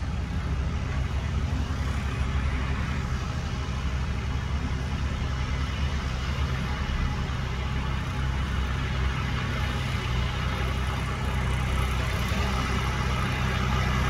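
JCB backhoe loader's diesel engine running steadily as the front bucket pushes a pile of soil, getting a little louder near the end.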